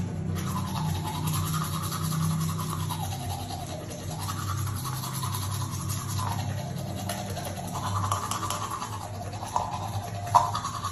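Teeth being brushed with a toothbrush: steady rapid scrubbing strokes whose tone rises and falls every couple of seconds as the brush moves around the mouth. A sharp click comes near the end.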